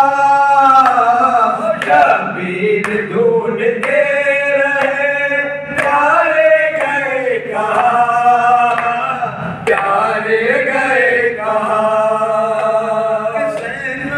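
Group of men singing a noha, a Muharram mourning lament in Urdu, unaccompanied into microphones, in long held notes that slide between pitches.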